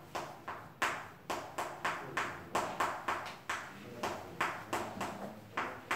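Chalk tapping and scraping on a chalkboard as a word is written, a quick run of short, sharp taps, about three a second.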